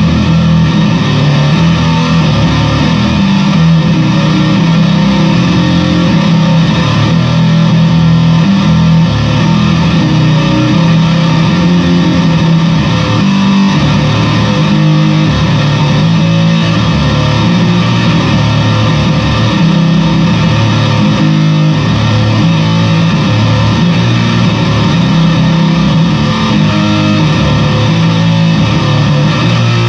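Fender Squier Bass VI six-string bass played through a fuzz pedal: a continuous run of low, sustained notes with heavy fuzz distortion, loud throughout.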